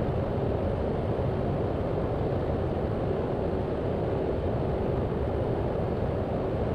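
Steady cockpit drone of a Cessna 208 Grand Caravan's single turboprop engine and airflow in flight, even in level with no change in pitch.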